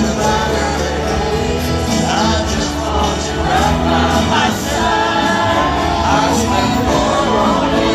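Live concert music: a band playing with several voices singing, loud and steady throughout.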